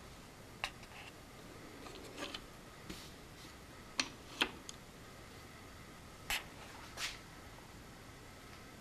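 A few light clicks and taps, spread unevenly over several seconds with the sharpest pair near the middle, from handling the mounted combination-lock display.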